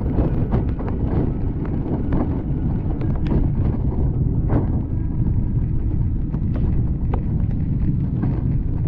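Wind buffeting the microphone of a camera on a moving bicycle, a steady low rumble, with tyre noise on the wet road. Scattered light clicks and taps come through it.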